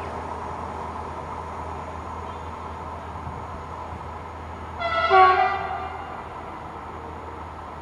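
A train horn sounds one loud blast of about a second, its stacked tones shifting in pitch. Under it runs the steady running noise of an electric multiple unit pulling away from the station.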